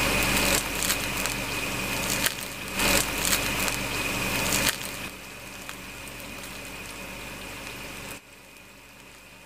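Crisp sesame-crusted fried cheese ball crackling and crunching as fingers squeeze and tear it open, loudest in the first five seconds, then fainter and stopping a little after eight seconds.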